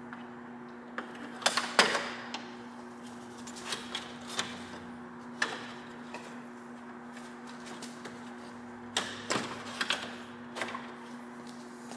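A plastic grille being fitted into the front end of a Lexus LX570: a scattered series of sharp plastic clicks and knocks as it is pushed against its mounts, the loudest about two seconds in and another cluster near nine to ten seconds, over a steady low hum.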